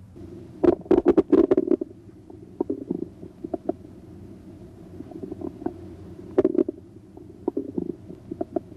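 Bowel sounds heard through a stethoscope's diaphragm over the right lower quadrant of the abdomen: irregular gurgles and clicks. They come in a burst about a second in, another past six seconds, and more near the end.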